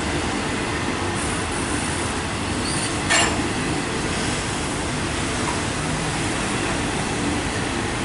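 CSX intermodal freight train rolling past, its flatcars loaded with highway trailers giving a steady noise of wheels on rail. There is a brief sharp metallic clank about three seconds in.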